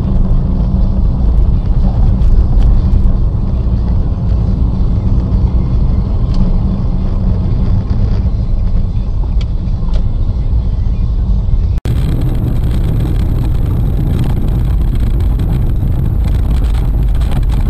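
A car driving, with a steady low engine and road rumble. The sound drops out for an instant about twelve seconds in and resumes with a different character.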